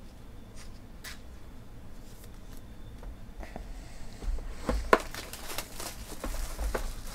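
Plastic shrink-wrap being torn and crinkled off a sealed Panini Limited football card box. A few faint clicks come first, then about four seconds in a dense run of crackling starts, with one sharp snap, the loudest moment, about a second later.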